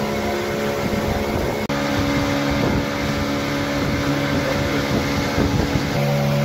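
Motorboat engine running steadily under way, with the rush of water and wind around the boat; the engine note shifts slightly a couple of times.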